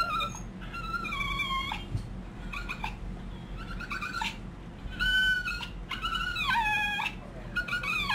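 A dog whining in a string of high, drawn-out cries, about eight or nine, some bending down in pitch. The dog is in labour and hurting.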